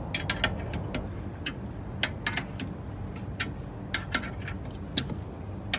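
Scissor jack being cranked with an open-end spanner to raise a car: a string of sharp, irregular clicks, one or two a second, as the wrench works the jack's screw.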